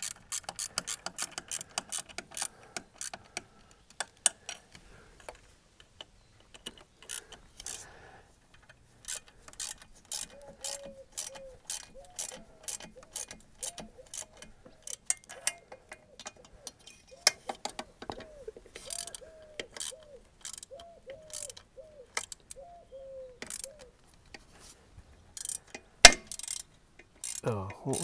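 Ratchet wrench clicking in quick runs as fasteners are tightened, with a short squeak that rises and falls repeating through the middle stretch. One sharp, loud click comes near the end.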